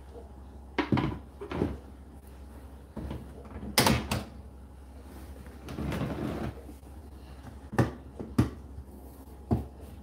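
Indesit IDC8T3 8 kg condenser tumble dryer running, a steady low hum under irregular thuds and knocks as the load tumbles in the drum.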